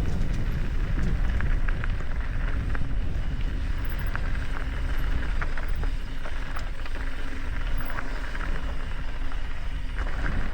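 Mountain bike riding downhill on a rough dirt trail: a steady low rumble of tyres and wind on the camera microphone, with scattered clicks and rattles from the bike and loose stones.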